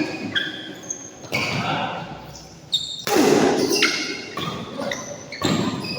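Badminton being played in a large sports hall: sharp racket hits on the shuttlecock every second or two, each echoing in the hall, with short high squeaks of shoes on the court floor and voices in between.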